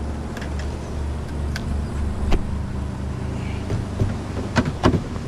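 Boat motor running with a steady low hum, with a few short knocks and clicks over it, the loudest two close together near the end.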